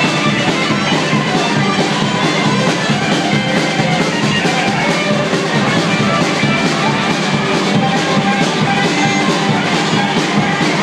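Rock band playing loud and dense, live: electric guitars over a drum kit beat, with fiddle and trumpet in the mix. An instrumental passage with no singing.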